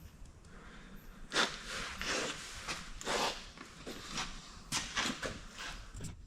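Workshop handling noises: several separate soft knocks and scrapes of parts and tools being moved and set down, a few seconds apart.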